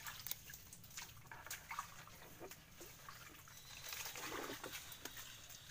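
Bare feet squelching and sloshing through shallow mud and water, with scattered small clicks and rustles. A fuller, longer slosh comes about four seconds in.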